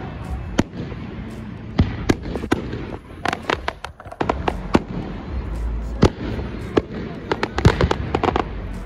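Aerial fireworks bursting overhead: a rapid, irregular string of sharp pops and crackles from exploding shells, coming in clusters over a steady low rumble.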